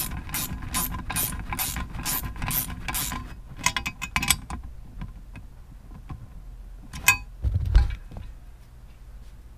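Ratchet wrench working the dead pedal bracket's bolts, about two and a half quick strokes a second for the first three seconds, followed by a few metal clicks and, near the end, a click and a dull thump.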